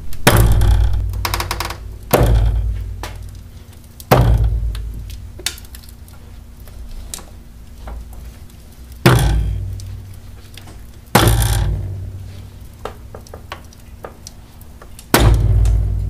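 A completely worn strut top mount knocking: six heavy clunks, each followed by a low rumble dying away, with lighter clicks between them. The mount's rubber is cracked and broken and no longer cushions the strut.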